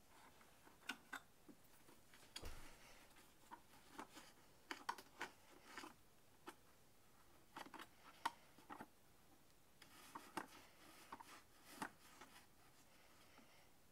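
Near silence with faint, irregular clicks and taps scattered throughout.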